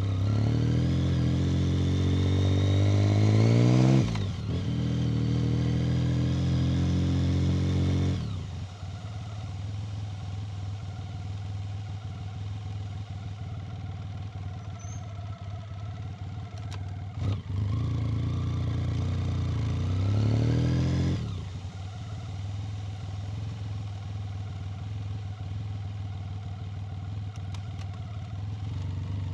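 1990 BMW K75 motorcycle's three-cylinder engine, heard from on board. It accelerates with the pitch climbing, breaks briefly about four seconds in, and pulls up again until about eight seconds. It then settles to a quieter steady note, with one more short pull from about eighteen to twenty-one seconds before easing off again.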